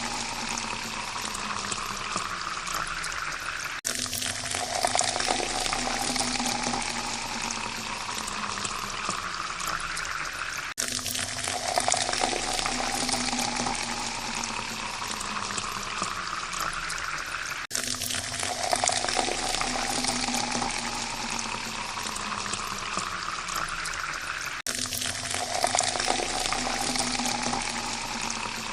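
Water pouring into a drinking glass, the tone of the pour rising in pitch as the glass fills. Each pour lasts about seven seconds and then breaks off and starts again from low, four times over.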